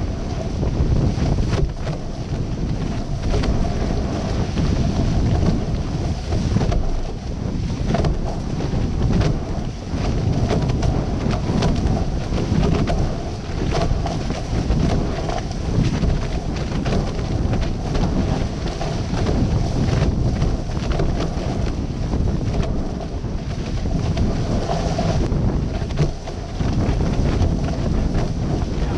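Wind buffeting an action camera's microphone, with water rushing and spraying off a catamaran's hulls at speed.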